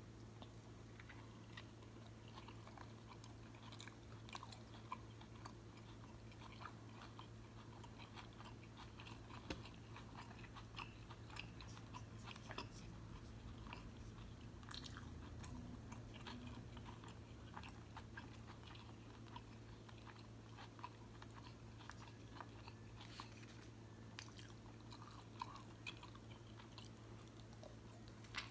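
Faint close-up chewing of a steak street taco: many small wet mouth clicks and soft bites, over a low steady hum.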